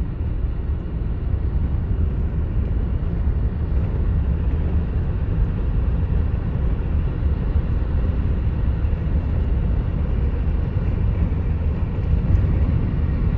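Steady low rumble of a car driving along a road, heard from inside the moving car: road and wind noise.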